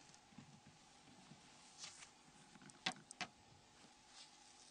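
Near silence broken by a few faint clicks, two of them close together about three seconds in, as a plastic pry tool levers the phone's flip circuit board module free of its plastic housing.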